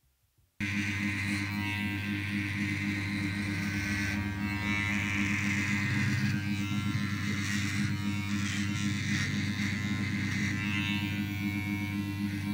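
Kemei KM-1757 electric hair trimmer running with a steady buzz that starts abruptly about half a second in, with a higher rasp that comes and goes as it shears hair off the head.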